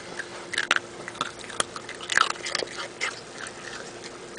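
Dachshund chewing a small hard dog biscuit taken from fingers: a series of irregular crunches and bites.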